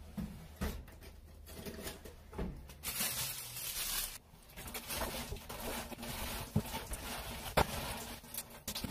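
Household handling sounds at a stainless-steel kitchen sink: scattered knocks and clatters of utensils and a metal bowl, with tap water running into the sink in the later part.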